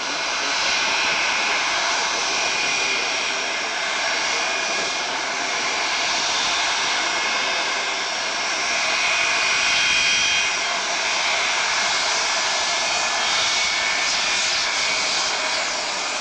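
Four jet engines of a Kuwait Airways Boeing 707 running at taxi power as the airliner taxis and turns onto the runway: a steady jet rumble with high whining tones, swelling a little about ten seconds in.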